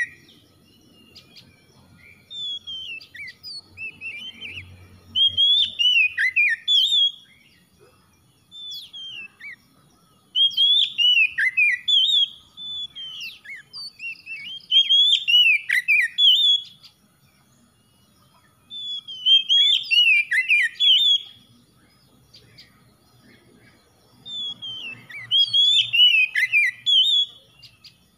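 Male oriental magpie-robin singing: a run of varied whistles and chirps in phrases one to three seconds long, repeated after short pauses.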